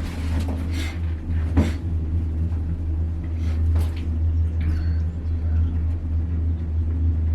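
Steady low rumble of a gondola cabin running up its cable, heard from inside the cabin, with a few short knocks and clicks.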